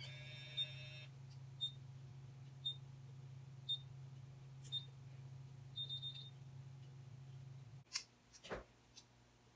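BaByliss MiraCurl automatic curling iron beeping about once a second as it times a curl, then a quick run of beeps about six seconds in, signalling the curl is done. A faint steady low hum runs underneath until it cuts off near the end, followed by a couple of clicks.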